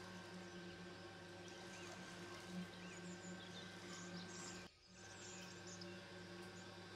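Faint steady electrical hum with a few faint, short bird chirps over it; the sound drops out for a moment a little under five seconds in.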